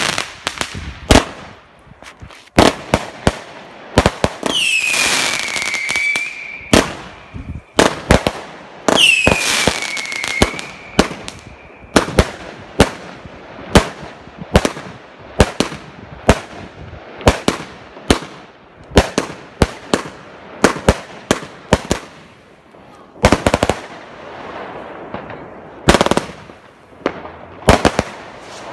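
New Year's Eve fireworks and firecrackers going off: a long, irregular run of sharp bangs, some in quick clusters. Two whistling fireworks sound about five and nine seconds in, each a falling whistle that levels off before fading.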